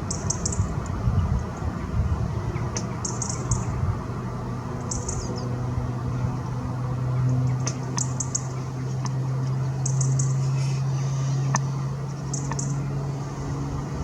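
Small garden birds chirping in short, high bursts every couple of seconds, over a steady low hum.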